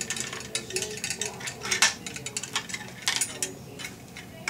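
Tongue-and-groove pliers and the metal parts of a new single-handle faucet clicking and clinking as they are handled, a run of sharp irregular clicks with louder clinks about two and three seconds in.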